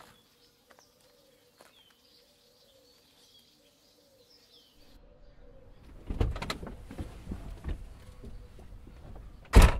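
Faint bird calls, with soft dove-like cooing. Then rustling and knocks as people climb into a car, and a loud thud of a car door shutting near the end.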